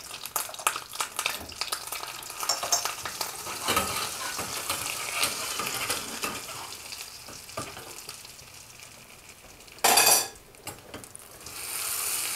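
Butter and red pepper flakes sizzling in a small brass pan, a metal spoon stirring and clicking against the pan. There is one brief louder burst about ten seconds in, and the sizzle swells near the end.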